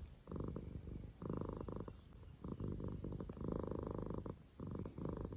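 Sleeping cat snoring: a purr-like pulsing rumble on each breath, in spells of under a second with brief pauses between them.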